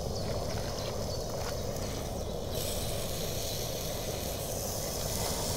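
Steady low rush from a portable gas grill running, with a higher sizzling hiss that comes in about halfway through as the food is turned on the hot grate.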